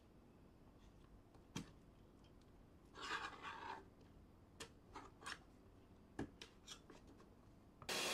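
Faint scattered clicks of plastic and metal parts being handled, with one short scrape about three seconds in, as the metal-backed drum cleaning blade is worked loose from the plastic toner cartridge housing with a small hand tool.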